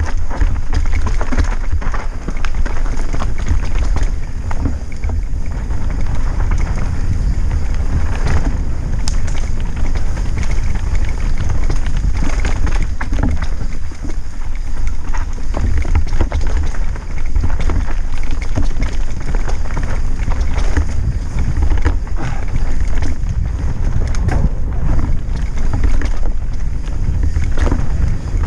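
Wind rumbling on a helmet-mounted camera's microphone as a mountain bike descends a rocky dirt trail, with frequent knocks and rattles from the tyres striking rocks and from the bike.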